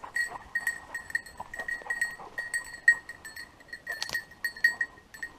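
Bell on a hunting setter's collar clinking irregularly, several quick strikes a second, as the dog works through the undergrowth. A sharper crack comes about four seconds in.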